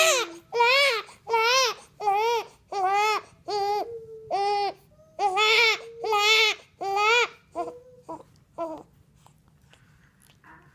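Young baby crying at the breast while being nursed: a run of loud wails repeating about every 0.7 s, breaking into two shorter cries and falling quiet near the end as he settles onto the breast to feed.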